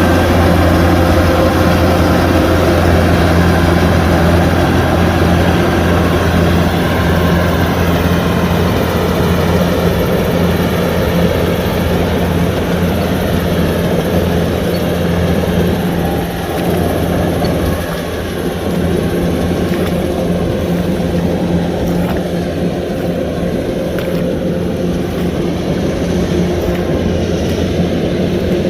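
Kubota DC-105X combine harvester running steadily while harvesting rice: a deep, constant engine hum with a machinery roar, easing off slightly a little past halfway.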